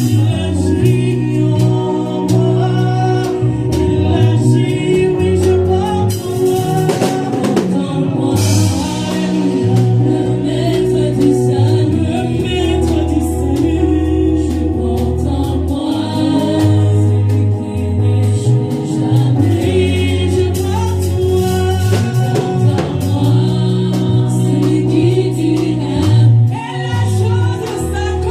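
Gospel worship music: a choir singing with a band, with bass and drum kit.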